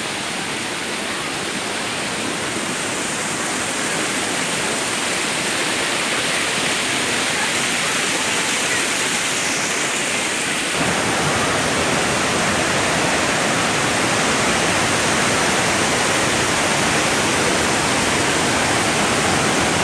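Waterfall: a steady, loud rush of falling water that grows a little louder, turning fuller and deeper suddenly about eleven seconds in.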